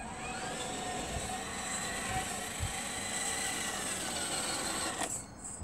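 Radio-controlled scale crawler truck's electric motor and gearbox whining as it drives, the pitch easing slightly, then cutting off about five seconds in.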